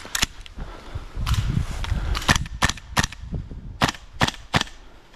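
Airsoft guns firing single shots: about eight sharp clacks in quick groups of two and three.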